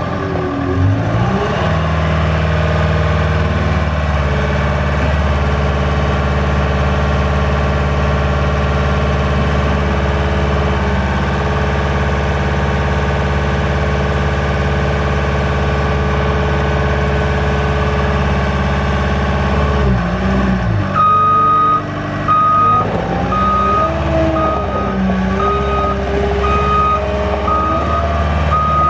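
CAT 226D skid steer's diesel engine running. It speeds up about a second in and holds a steady pitch. About 20 seconds in the pitch drops, and then the reversing alarm beeps about once a second as the machine backs up, while the engine note rises and falls.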